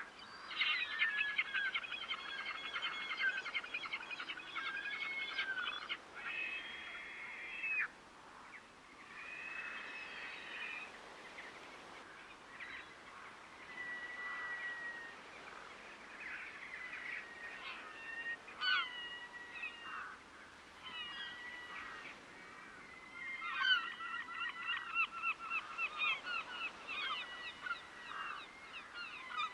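A flock of waterbirds calling: quick runs of harsh repeated calls in the first several seconds and again near the end, with scattered single calls in between.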